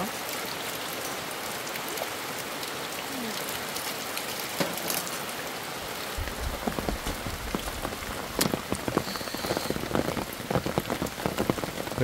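Steady rain falling on a camping tarp. In the second half, close, sharp taps of drops join it, along with a low rumble.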